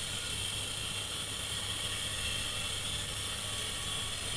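A steady, even hiss with a faint whir and no distinct events.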